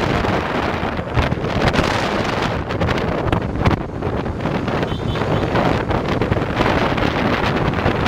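Heavy wind buffeting the microphone of a camera on a moving motorcycle, with the motorcycles' engine and road noise underneath.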